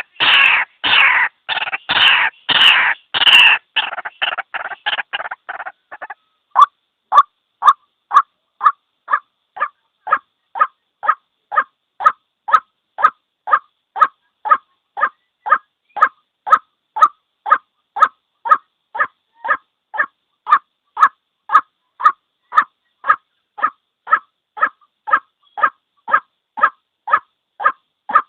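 A single white-breasted waterhen calling: loud, harsh rasping calls for the first few seconds, then from about six seconds in a long, even run of short single notes, about two a second.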